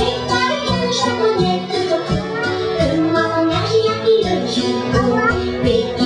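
A children's song: singing over music with a steady beat.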